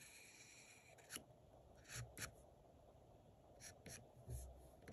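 Faint scratching of a graphite pencil on drawing paper: several short, separate strokes, with a soft low bump a little past four seconds in.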